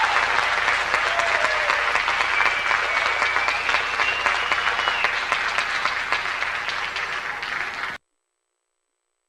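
Audience applauding, with a few higher cheers mixed in; the sound cuts off abruptly about eight seconds in.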